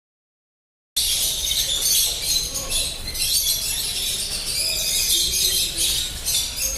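Silent for about the first second, then a dense chorus of many small birds chirping at once, high-pitched and continuous, over a low rumble.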